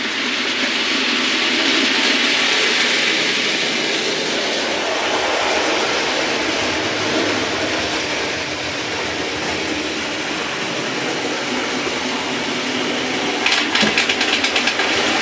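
Train passing: a steady rushing rumble, with a quick run of clicks near the end.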